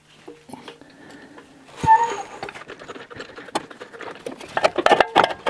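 Metal clunks and clicks from car front suspension parts being levered and forced into place, with one sharp clunk that rings briefly about two seconds in and a quick run of knocks near the end. This is the sound of the part seating when it is finally fitted.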